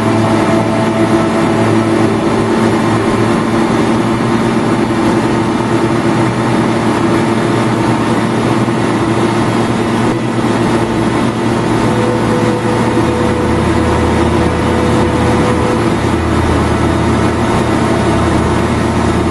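Motorboat engine running steadily at towing speed over the rush of the wake, with a deeper hum joining about two-thirds of the way through.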